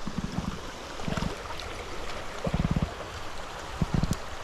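River water flowing steadily, with four short low thuds or sloshes spread through it.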